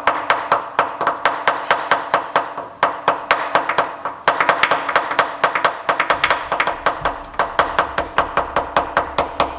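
Hammer tapping rapidly and repeatedly on a crankshaft timing gear, about four to five ringing metal-on-metal strikes a second with a couple of brief pauses, to shock the stuck gear loose and drive it off the crank.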